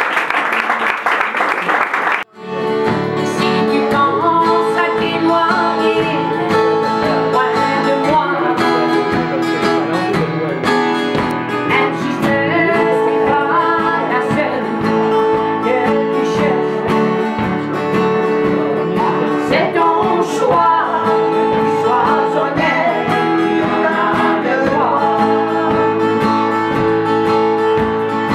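Two acoustic guitars strummed as accompaniment while a woman sings a song. The sound breaks off abruptly for an instant about two seconds in, then guitars and singing carry on.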